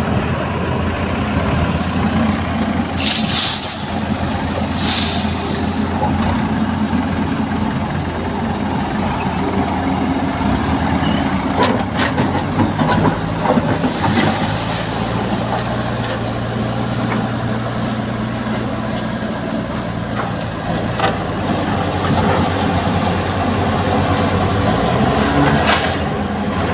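Heavy diesel machinery working: a Tata Hitachi excavator and a JCB backhoe loader running steadily while moving crushed stone. Two short hisses come a few seconds in, and a few knocks come near the middle.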